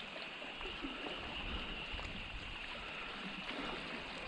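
Small waves lapping and trickling among shoreline rocks as a steady faint wash, with a few light clicks and some low wind rumble on the microphone.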